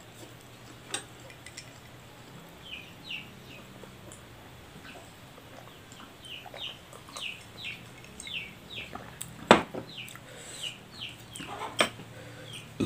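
Chicks peeping: many short, high, falling cheeps repeated from about two and a half seconds in. A few sharp clinks of a spoon on a plate sound among them, the loudest about nine and a half seconds in.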